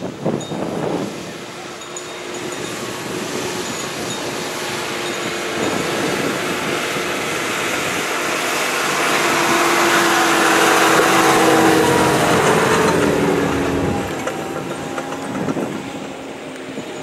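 An off-road 4x4 SUV driving across grass toward the camera: its engine and tyres grow steadily louder, peak about ten to twelve seconds in with the engine note dropping slightly as it comes close, then ease off.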